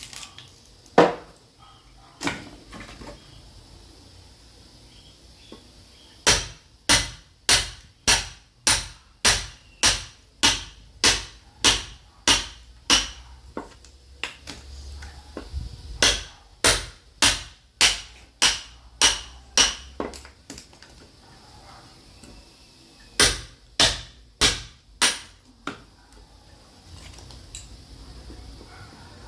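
Sledgehammer striking a steel chisel to split firewood: sharp ringing metal blows, a couple of single strikes at first, then steady runs of blows at about one and a half to two a second, broken by short pauses.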